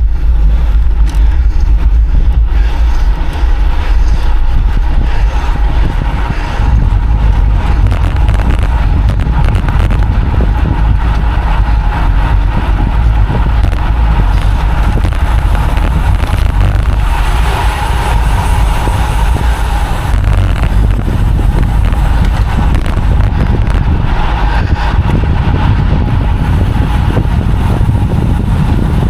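Wind buffeting a cyclist's camera microphone while riding at speed: a loud, steady, low rumble.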